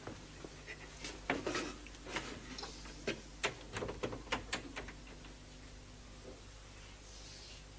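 Footsteps on a hard floor: a run of irregular knocks and clicks, about two or three a second, that stop about five seconds in. A steady low hum from the old soundtrack runs under them.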